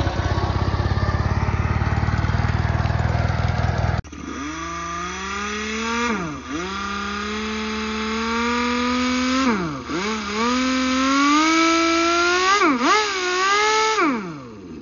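An engine running loudly with a steady low chug. About four seconds in, it cuts abruptly to a smooth motor whine that sags in pitch three times, as if under load, and winds down near the end.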